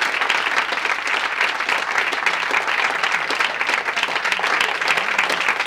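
Studio audience applauding steadily at the end of a rock song.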